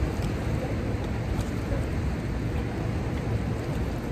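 Steady rushing noise of river water flowing out below a hydroelectric dam, a constant low rumble with hiss over it.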